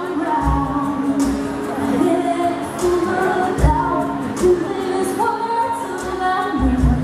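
A woman singing live into a microphone, holding long notes, over instrumental accompaniment with a steady low note and bass pulses.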